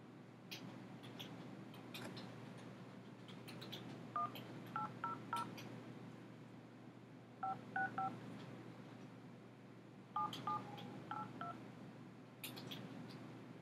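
Touch-tone (DTMF) keypad tones dialing a toll-free phone number: short two-note beeps in three quick groups, roughly four, three and four digits, about 4, 7.5 and 10 seconds in. Faint clicks are scattered between them.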